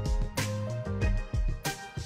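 Instrumental background music with a bass line and a drum beat.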